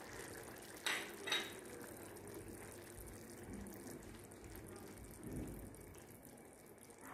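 Liver curry gravy bubbling faintly in an aluminium pot, still simmering on residual heat just after the gas flame is turned off, with two light clicks about a second in.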